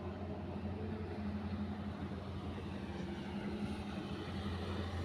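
Heavy diesel engine of an excavator or dump truck running steadily with a low, even hum.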